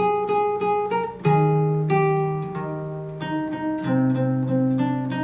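Acoustic guitar music: a run of picked notes over held bass notes, with a louder chord struck about a second in.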